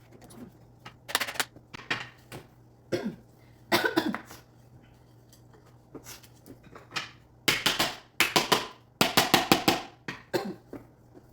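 Wooden plant-stand parts knocked and tapped together during assembly: scattered knocks, then two quick runs of strikes more than halfway through.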